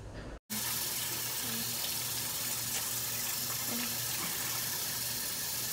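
Bathroom sink tap running steadily, starting abruptly about half a second in.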